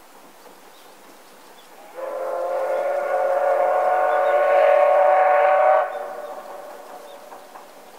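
Steam whistle of the C58 363 steam locomotive blowing one long blast of about four seconds, starting about two seconds in, then cutting off sharply and leaving a fading tail.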